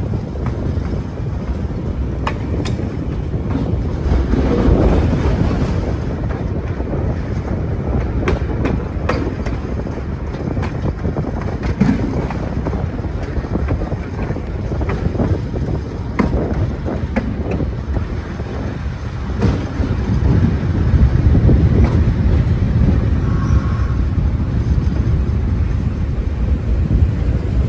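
Diesel locomotive running light at low speed: a steady low rumble of the engine and running gear, with the wheels clicking over rail joints and points every second or few.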